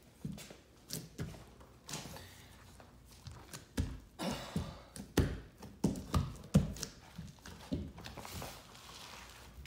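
Irregular light thunks and taps with brief rustling or scraping in between, handling noises as a paper hanger works a photomural panel on the wall.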